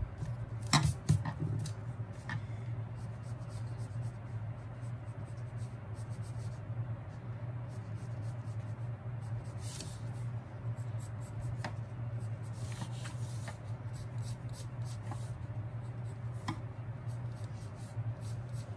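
Pencil scratching on paper in short, irregular strokes over a steady low hum, with a couple of louder knocks about a second in.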